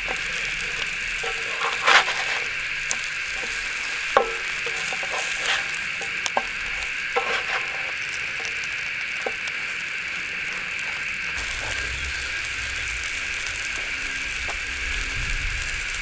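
Breadcrumbed redfin fillets sizzling steadily as they shallow-fry in a pan on a butane camp stove. A spatula clicks and scrapes against the pan several times in the first half as the fillets are turned.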